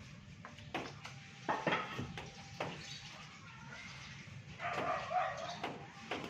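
A dog barking a few times, the longest call about three-quarters of the way through, with a few sharp clicks and knocks in between.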